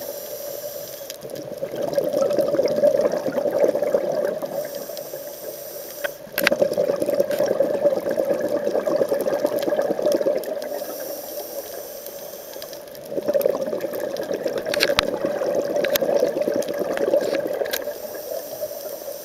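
A scuba diver breathing through a regulator underwater, about three breaths: a short hissing inhale, then a longer bubbling exhale. A few sharp clicks come through now and then.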